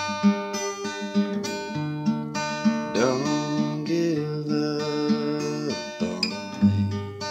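Acoustic guitar strummed in steady chords with low bass notes, as the accompaniment of a ballad. From about three seconds in, a held, wavering melody line rises over the strumming for about three seconds.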